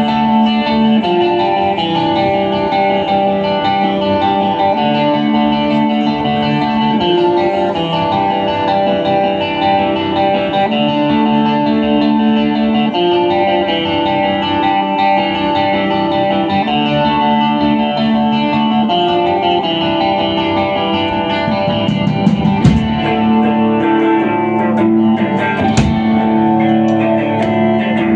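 A live rock band playing an instrumental passage with no vocals, led by guitar holding steady ringing chords that change every second or two. Sharp drum hits come in over the last few seconds.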